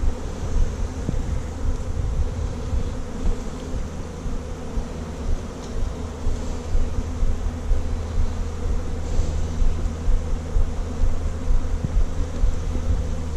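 Dense, steady buzzing of many honeybees at close range, a continuous hum with a low pitch. The colony is stirred up by being moved from its nuc box into a new Layens hive.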